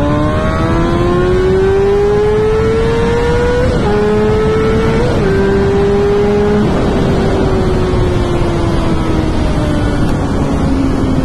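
Kawasaki ZX6R's 599 cc inline-four running hard on a loud exhaust, revs climbing through the gears with quick upshifts about four and five seconds in, then the revs falling away slowly as the bike rolls off, with wind rush over the helmet microphone.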